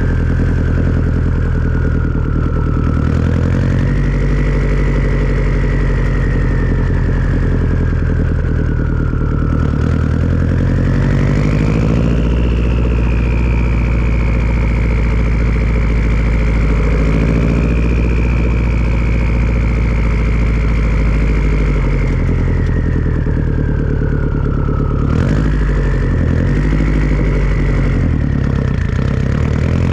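Turbocharged Subaru flat-four engine running at low revs through a Tomei turbo-back exhaust, with the turbo's high whistle sliding slowly up and down in pitch as the revs change. The whistle climbs sharply about ten seconds in, holds high, then sinks and jumps back up about twenty-five seconds in.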